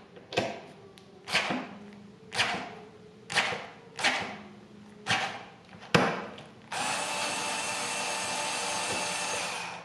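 Worx WX255L semi-automatic electric screwdriver straining against a screw tightened to 45 inch-pounds: about seven short bursts of the motor as it struggles, then about seven seconds in the screw breaks loose and the motor runs steadily for about three seconds as it backs out.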